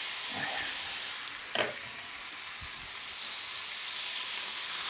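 A whole stuffed squid searing in sunflower oil in a cast-iron frying pan, sizzling steadily as its liquid cooks off and it starts to brown. There is a single light knock about a second and a half in.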